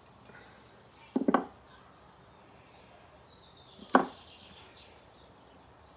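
Knocks and clatter from chainsaw parts and tools being handled on a workbench: a quick run of three or four knocks about a second in, then a single sharp knock about four seconds in.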